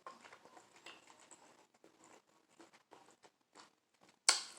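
A person chewing food close to the microphone: soft, wet mouth clicks and smacks, with one louder sharp smack about four seconds in.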